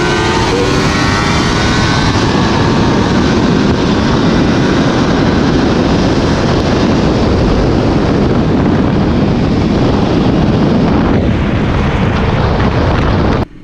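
Motorcycle ridden at speed: heavy wind rush over the microphone with the engine running underneath, its pitch climbing briefly at first as it accelerates. The sound cuts off suddenly near the end.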